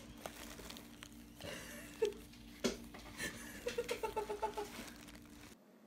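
Plastic bubble wrap crinkling and rustling as a cat paws at it from underneath, with scattered light taps and a sharper click about halfway through. A short run of soft pitched squeaks comes about two-thirds of the way through.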